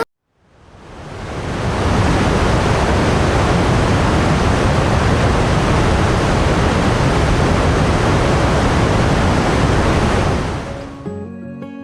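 Steady rushing noise that fades in over the first two seconds and fades out about ten seconds in, as soft music with held notes begins.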